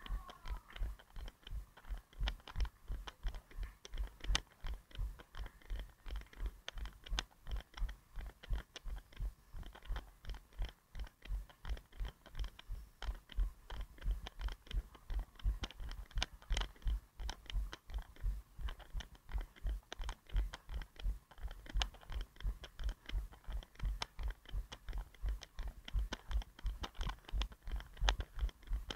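A runner's footfalls carried through a head-mounted action camera: steady low thuds about three a second, at running cadence, with small clicks from the camera and its mount.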